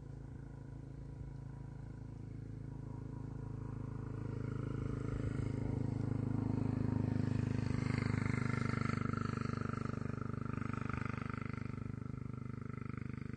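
A camel's low, continuous rumbling growl that swells about halfway through and eases off toward the end.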